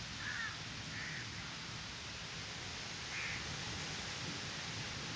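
A crow cawing three times in short calls over a steady background hiss.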